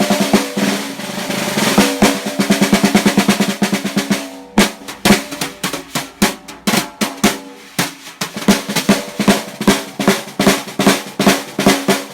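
Custom 5x14 aluminium snare drum with Evans Calftone heads, played with sticks: a dense roll for the first few seconds, then separate sharp strokes with short gaps, then a quicker steady run of strokes from about two-thirds in. Each hit carries the drum's ringing tone with the snare wires sizzling underneath.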